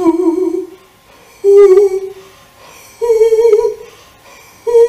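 A woman singing four short, separate notes on a breathy 'hu', about a second and a half apart, each a step higher than the last: a breath-support exercise in which each note is pushed out from the lower belly muscles.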